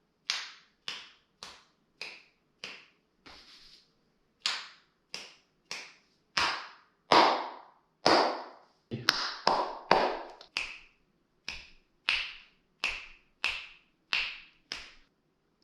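Hand claps, about two dozen sharp single claps at one or two a second, each trailing a short echo off the room's hard walls: a clap test of the room's reverberation with one wall of felt acoustic panels up, which still leaves it a little echoey.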